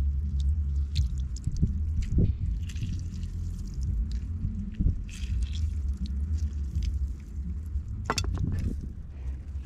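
Lemon halves squeezed by hand over a plate of raw seafood: faint squishing, dripping and small clicks, with a sharper crackle about eight seconds in, over a steady low rumble.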